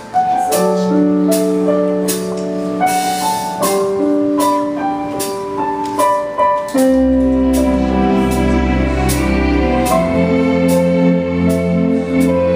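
Instrumental music: piano or keyboard chords over a steady beat, with a deep bass joining about seven seconds in.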